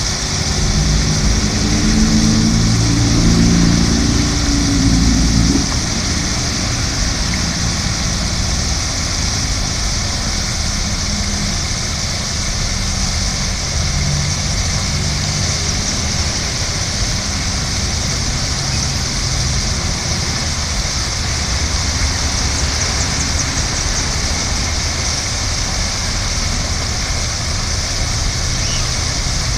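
Park fountain's water jets and sprays splashing into the basin in a steady hiss. For about the first five seconds a louder low hum rides under it, then stops.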